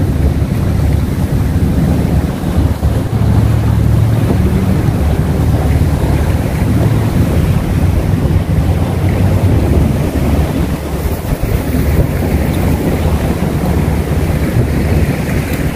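Wind buffeting the microphone, a loud, steady low rumble, over sea water washing against the rocks of a breakwater.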